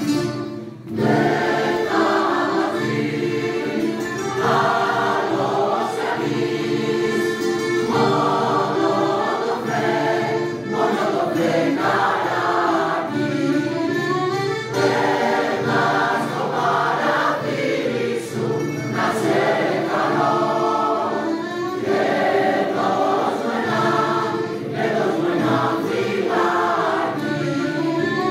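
Mixed choir singing with a mandolin orchestra of mandolins, guitars and accordion. There is a short break about a second in, then the singing carries on in long phrases.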